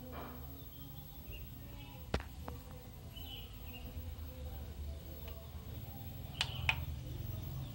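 Low steady hum with faint high chirps in the background. There is a sharp click a little over two seconds in, then two quick clicks near the end as a button on the top panel of a Sony BDV-E4100 home theatre unit is pressed.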